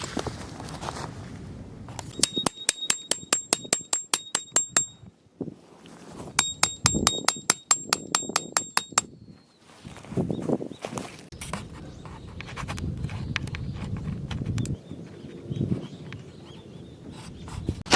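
Two runs of rapid metallic clicks, about five a second and each about three seconds long, every click with a short ring; then irregular rustling and handling noises.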